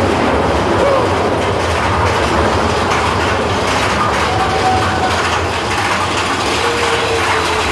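Big Thunder Mountain Railroad mine-train roller coaster running along its track: a steady rumble and rattle of the train in motion.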